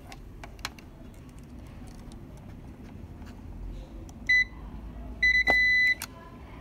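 A digital multimeter's continuity beeper sounds twice: a short beep about four seconds in, then a steady beep of nearly a second just after five seconds. Each beep comes as the test probes touch the two ends of a line in a flat ribbon scanner cable, and it marks that line as unbroken.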